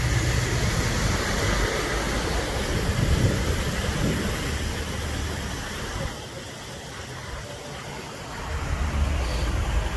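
Motor vehicles, among them a delivery lorry, driving through deep floodwater: engines running under a steady rush and splash of water thrown up by the tyres. It is loudest in the first half, eases off about six seconds in, and builds again near the end as more cars go through.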